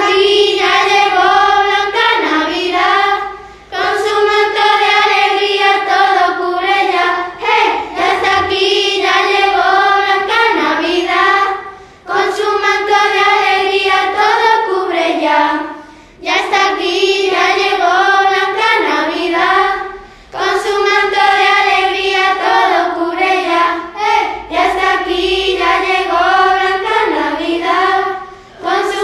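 Group of children singing a Christmas carol together in unison, in phrases a few seconds long with short breaks between them.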